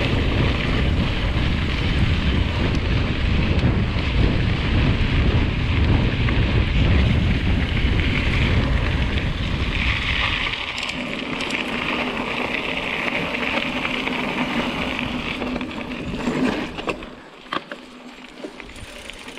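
Mountain bike on a singletrack trail: wind rumbling on the microphone along with tyre and trail noise. The low rumble drops away about halfway through, leaving a lighter hiss, and near the end it goes quieter with scattered clicks and rattles.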